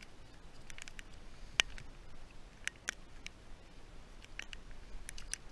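Close handling noise as a small fish is unhooked by hand on snowy ice: scattered light clicks and crunches, with one sharp click about a second and a half in.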